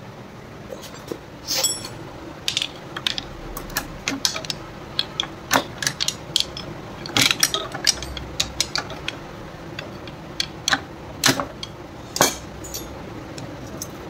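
Hand tools and metal parts of a TVS Apache RTR 160 4V engine clicking and clanking as the engine is dismantled: many irregular sharp metallic clicks, some in quick clusters, with ratchet-like clicking.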